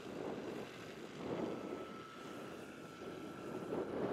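Large electric scale model Hughes 500 helicopter with a 2.65 m rotor in flight, its rotor noise rising and falling in loudness as it moves. A faint steady whine joins about a second and a half in.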